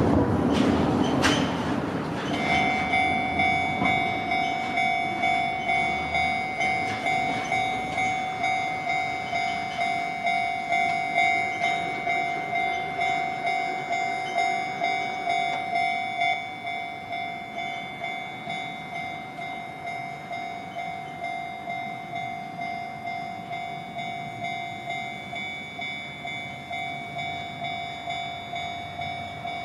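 Railway level-crossing warning bell ringing: a repeated electronic ding at about one and a half strikes a second, starting about two seconds in after a brief rush of noise and clatter, and dropping a little in level about sixteen seconds in.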